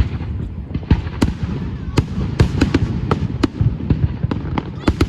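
Fireworks display: about a dozen sharp bangs and cracks, irregularly spaced, over a continuous low rumble of further bursts.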